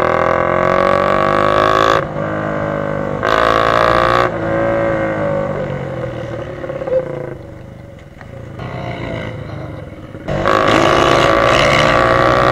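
Dirt bike engine heard from the rider's helmet, its pitch rising and falling as the throttle is opened and closed. It drops to a quieter, lower note around the middle, then comes back loud and high about ten seconds in.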